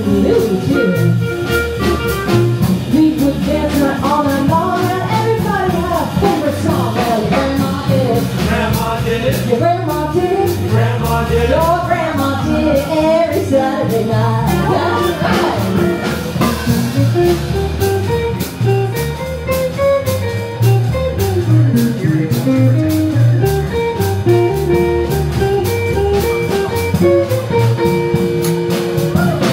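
Live swing combo playing an up-tempo 1940s-style swing tune: clarinet, hollow-body electric guitar, upright bass and drum kit. A gliding clarinet line leads in the first half, and a line of separate picked notes takes over in the second half.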